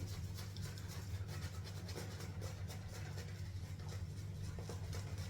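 Large badger-hair shaving brush scrubbing soap lather on the face: faint, irregular rubbing and scratching strokes over a steady low hum.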